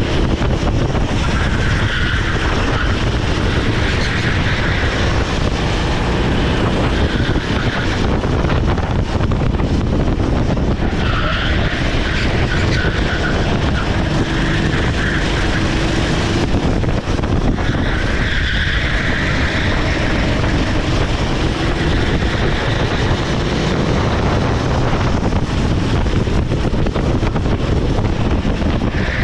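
Sodikart SR4 rental kart's Honda GX390 single-cylinder four-stroke engine running hard, heard from onboard, with the tyres squealing through corners in several stretches.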